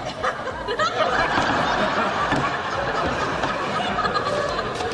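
Sitcom studio audience laughing steadily.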